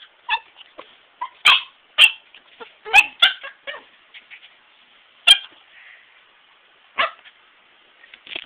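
Dog barking at the phone camera held up close to it: a quick run of short, sharp barks in the first few seconds, then two single barks a couple of seconds apart.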